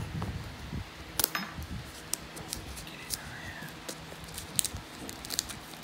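Plastic shrink wrap on a phone box crackling as a knife blade slits it and fingers work it loose: irregular sharp crinkles and clicks, the loudest about a second in.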